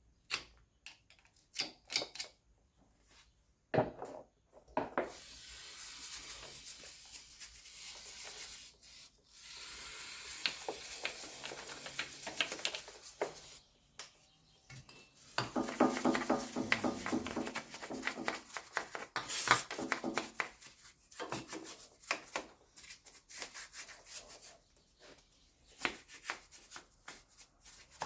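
Scraping and rubbing in stretches of a few seconds at a time, between scattered sharp clicks and knocks.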